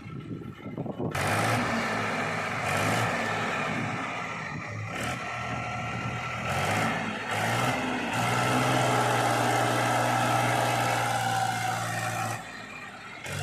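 Diesel engine of heavy earth-moving machinery running under load, its engine note shifting a few times and settling into a steadier, higher pitch about two-thirds of the way through; the sound drops away briefly near the end.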